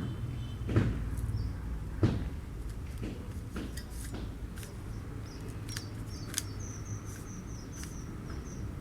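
3x3 Rubik's Cube being turned by hand: scattered plastic clicks and clacks as the layers turn, two louder clacks in the first couple of seconds, over a steady low hum.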